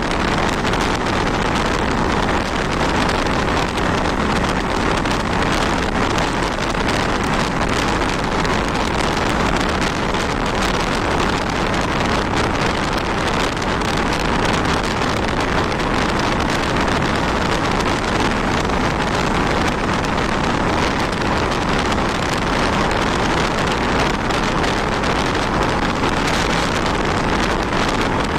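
Motorcycle riding at a steady speed: constant wind rush over the microphone with the bike's engine running underneath, without change.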